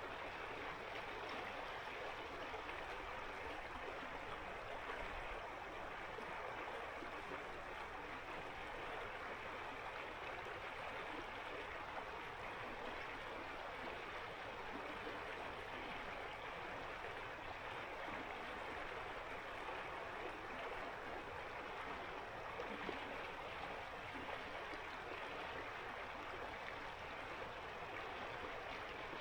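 Ice-cold winter mountain river flowing: a steady, even rush of water with no breaks.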